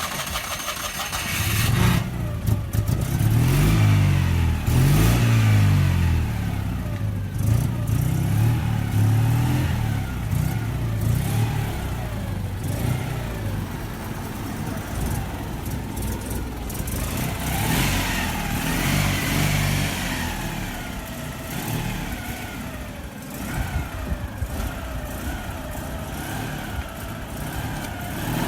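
Citroën 2CV's air-cooled flat-twin engine running and being revved, its pitch rising and falling again and again. It is loudest in the first ten seconds or so, then settles lower with a few more revs later on.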